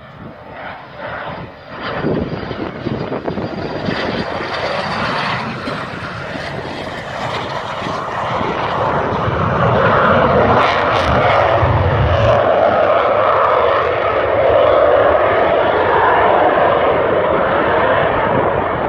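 Military jet engine noise. A high whine fades in the first few seconds while the roar builds, and from about halfway through it holds as a loud, steady roar.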